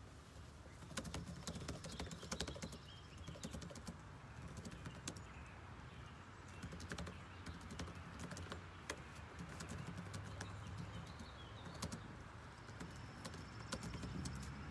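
Fingers tapping and handling a phone close to its microphone: light, irregular clicks over a low steady rumble, with faint bird chirps.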